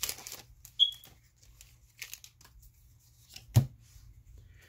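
Foil booster-pack wrapper rustling and trading cards being handled, in scattered soft crinkles and slides, with one sharp tap about three and a half seconds in.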